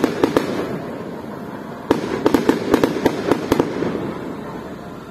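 Aerial firework shells bursting overhead: a few sharp pops at the start, then a sudden loud bang about two seconds in followed by a rapid string of crackling reports, fading away over the last second.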